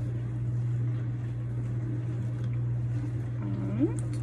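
A steady low hum, with a person's short rising 'mm' near the end.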